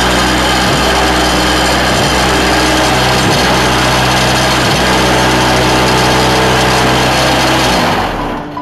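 QTY3-13 semi-hydraulic curbstone making machine running loud and steady with a deep hum, vibrating concrete mix in the mould to compact it. The hum dips briefly about every second and a half, and the sound fades out near the end.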